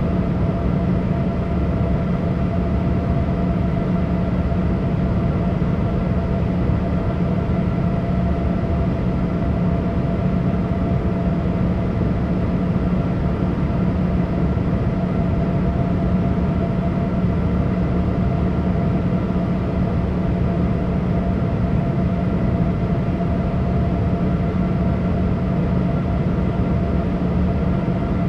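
Steady cabin noise inside a Boeing 787 airliner: a constant drone of engines and air, with a few steady hums on top and no change in pitch or level.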